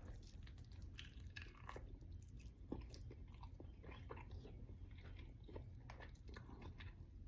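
Faint, irregular chewing and biting on a smoked chicken wing, with small scattered clicks and one slightly louder one a little under three seconds in.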